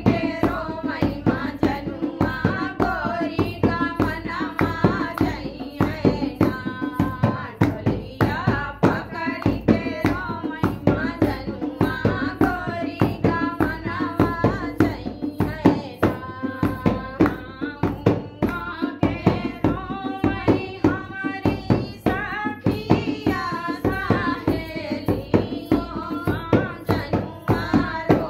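Women singing a dehati folk song (lok geet) together over a steady, fast percussive beat.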